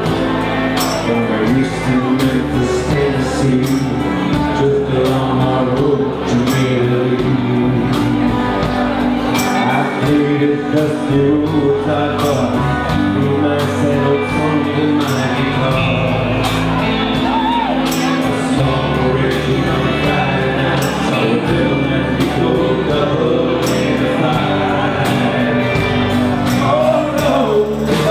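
A live rock band playing a song with a male lead singer, over electric bass, drums and keyboards.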